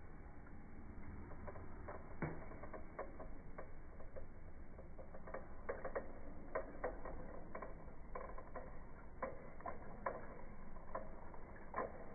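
Plastic toy car clicking and rattling as it is handled and pushed about, in irregular light taps, some a little louder than others.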